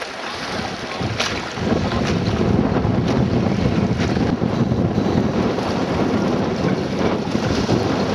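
Wind buffeting the microphone, a low rumble that turns louder about a second and a half in, over the wash of choppy water.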